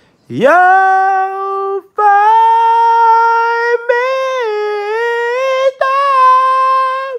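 A person's voice holding long, loud sung notes without words: four in a row, each lasting about one and a half to two seconds with a brief break between, the first sliding up into pitch and the later ones pitched a little higher.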